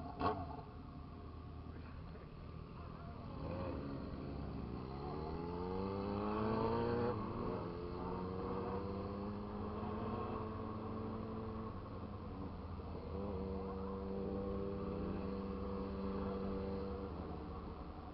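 Motorcycle engine pulling up through the revs for a few seconds, the pitch rising then falling back at a gear change about seven seconds in. It then holds a steady cruising note, with a short lull around twelve seconds in, over a constant road and wind rumble. Two sharp clicks come right at the start.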